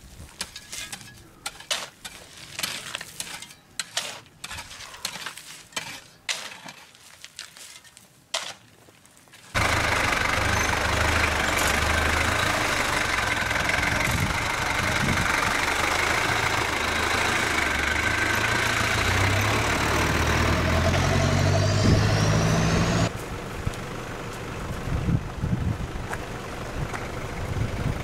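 Stones clinking and knocking as they are lifted and tossed aside by hand. Then an old Toyota Land Cruiser's engine runs steadily and loudly at low speed as it crawls over a rocky off-road track, dropping to a quieter engine sound with scattered knocks near the end.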